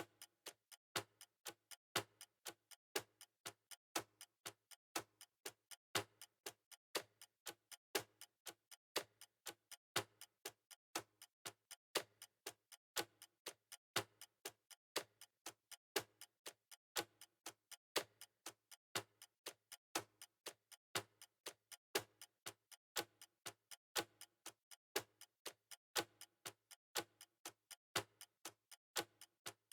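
Clock ticking steadily, about two ticks a second with every other tick louder, marking time being measured.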